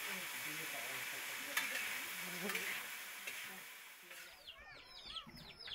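Beans frying and sizzling in a metal pan as they are stirred, with a sharp knock of the spoon against the pan about a second and a half in; the sizzle fades out just before four seconds. Then small birds chirp, short calls falling in pitch.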